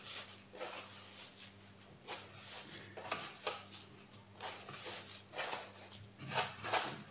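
Hands rubbing and working semolina against the sides of a wooden bowl: soft, gritty swishing and scraping strokes at an uneven pace of about one a second. The grains are being rubbed with orange-blossom water so that they soak it up and turn moist.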